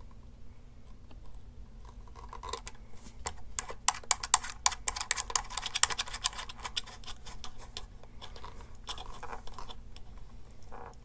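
Quick runs of small clicks and scratches from a Polk T50 speaker's plastic binding-post cap being screwed down by hand onto bare speaker wire, busiest about halfway through.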